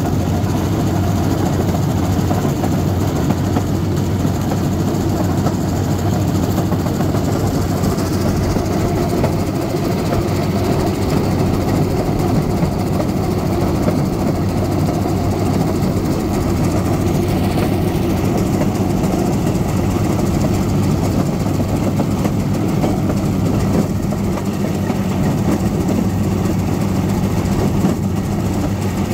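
Railcart's small engine running steadily, a continuous low drone at an even pitch and level.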